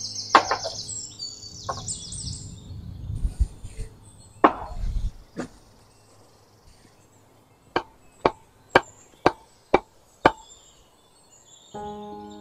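Sharp knocks: a few scattered ones with birds chirping, then six evenly spaced knocks about two a second. Background music comes in near the end.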